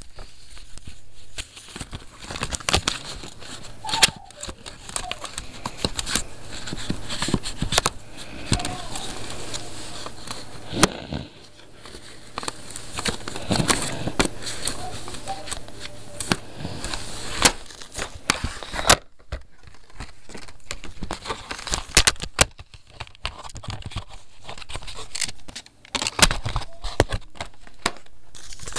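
Close handling noise: paper and fabric rustling and crinkling against the microphone, with many scattered sharp clicks and taps.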